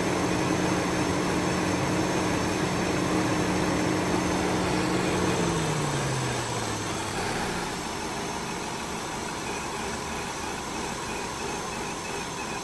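Electric radiator cooling fan of a Vauxhall Astra J 1.6 humming steadily over the idling engine. About five and a half seconds in, its hum falls in pitch and fades as the fan switches off and spins down. The warm four-cylinder petrol engine idles on, in a car logging lean-running faults (P0171, P0106).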